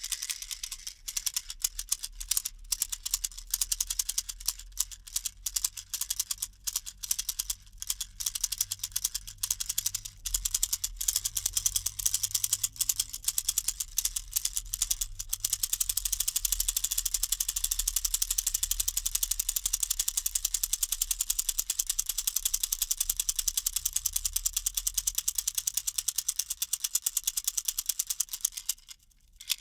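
Baby rattle shaken: a dense clatter of rapid clicks, uneven through the first half, then settling into a fast, steady rhythm; it stops briefly near the end.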